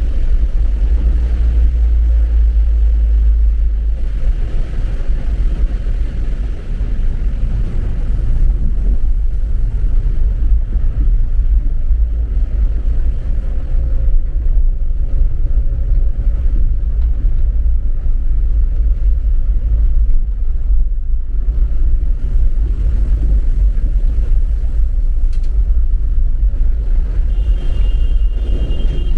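Car driving on a wet road, heard from inside: a steady low rumble of engine and tyres. A short high tone sounds near the end.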